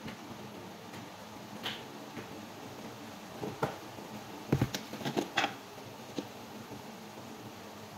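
Containers handled on a kitchen countertop: a plastic jar and its lid knocked and set down, giving a few short clicks and knocks in the middle, one with a dull thump. A steady low background hum runs underneath.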